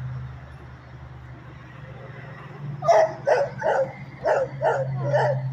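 Dog barking six times in quick succession, starting about three seconds in, over a steady low hum.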